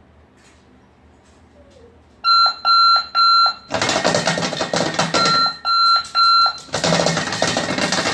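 Sonic Bomb alarm clock going off about two seconds in, super loud. Groups of three high beeps alternate with its bed shaker buzzing and rattling inside a tin pot.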